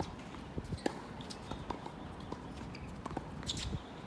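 Sharp hits and taps of a doubles rally in a racket sport, a few to a second at an uneven pace, mixed with footsteps on the court.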